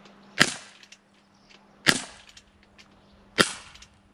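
Bruni Herd Wolf 711 CO2 revolver carbine firing 4.5 mm steel BBs: three sharp shots about a second and a half apart, each with a short decaying tail.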